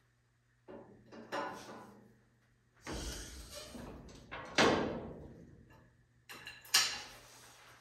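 Clunks, knocks and scraping from a race truck's four-link rear suspension and wishbone housing locator as an engine hoist lets the axle drop. There are several knocks, the loudest about halfway through and another near the end, each ringing briefly.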